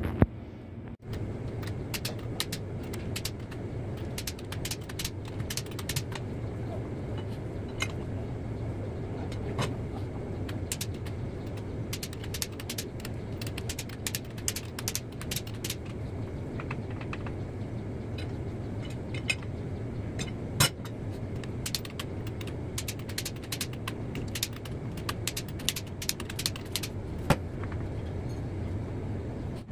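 Scattered sharp metallic clicks and clinks from a torque wrench and tools as the connecting-rod cap nuts of a Caterpillar 3406C engine are tightened. A steady low hum runs underneath, and one click about two-thirds of the way in stands out louder than the rest.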